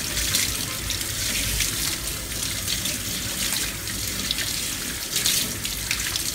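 Kitchen tap running steadily into a sink as raw chicken skin is washed under it.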